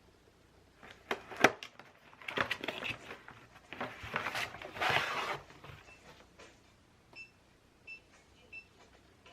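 Handling sounds: a run of sharp clicks and rustling for a few seconds, then three short, high electronic beeps spaced under a second apart.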